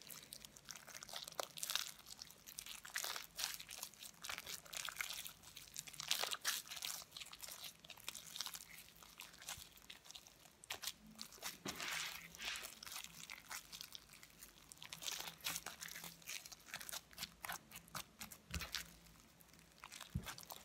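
Fluffy slime made with shaving foam, PVA glue and a Persil activator, kneaded, squeezed and stretched by hand, giving a run of quick, irregular faint crackles.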